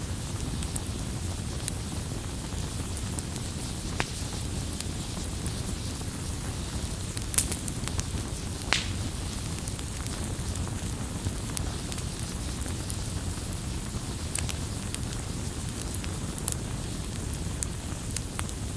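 Firewood burning, with a steady low rushing noise and scattered sharp crackles and pops. The two loudest pops come about seven and nine seconds in.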